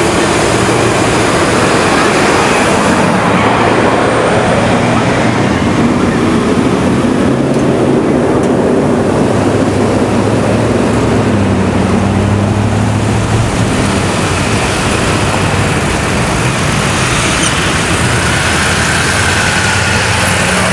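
Road traffic passing close by: a school bus, then a pickup truck, drive past with a steady loud rush of engine and tyre noise, the engine hum shifting in pitch as they move.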